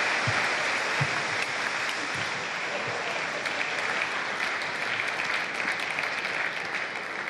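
Crowd in a sports hall applauding after a point in a table tennis match. The applause slowly tapers off toward the end, with a few low thuds in the first couple of seconds.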